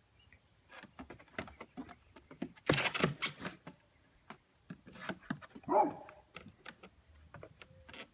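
Goat kids' hooves tapping and clattering on a plywood platform, with a louder scrambling clatter about three seconds in as one goat jumps down from the wooden table onto the plywood. A short goat bleat near six seconds in.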